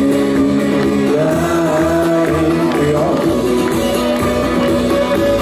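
Live band music played loud through concert loudspeakers, with a singer's voice holding long notes over the instruments.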